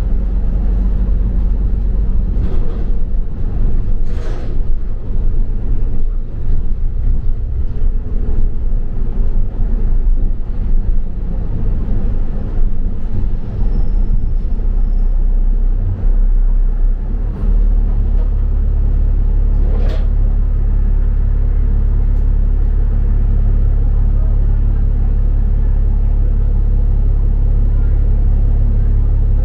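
Double-decker bus heard from on board: engine and road rumble with a few knocks and rattles, settling into a steady, even low drone about two-thirds of the way through. A faint high tone sounds briefly around the middle.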